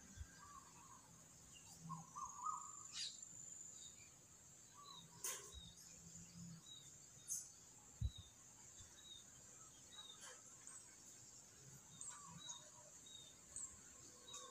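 Faint outdoor ambience: scattered bird chirps and calls over a steady high insect buzz, with a few soft knocks.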